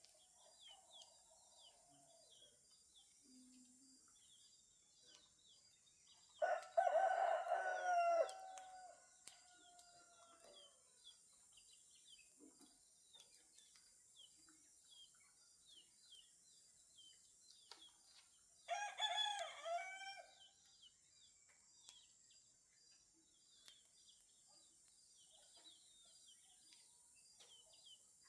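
A rooster crows twice: a long crow about six seconds in and a shorter one about twelve seconds later. Between them, small birds keep up a steady chorus of quick chirps over a constant high hiss.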